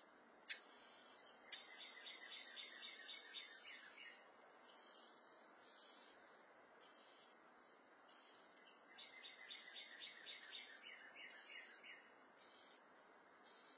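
Faint outdoor chorus of insects and birds: a high chirp repeating about once a second, with two rapid trills of quick notes a few seconds apart.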